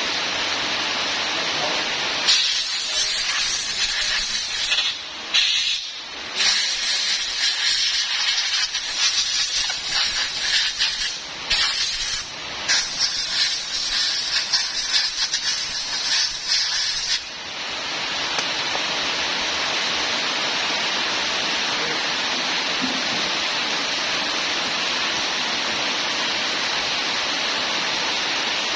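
A hissing jet of spray or air, on and off in long bursts from about two seconds in until about seventeen seconds, over a steady rushing noise.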